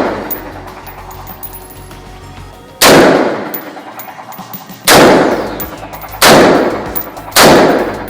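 Four single gunshots at uneven intervals of one to two seconds, each followed by a long fading echo; the echo of an earlier shot dies away at the start.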